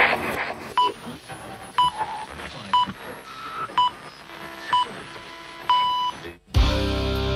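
Radio hour time signal: five short beeps one second apart, then a longer sixth beep marking the top of the hour, over a faint radio hiss. It opens with a burst of noise, and music starts right after the long beep.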